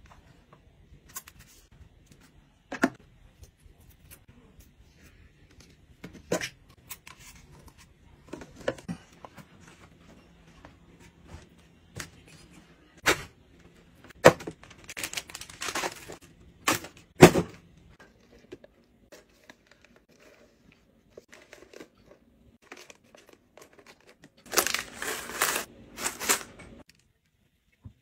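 Hands handling plastic toiletry bottles and packaging: scattered sharp taps and clicks of plastic, with two longer stretches of rustling, tearing packaging, about halfway through and near the end.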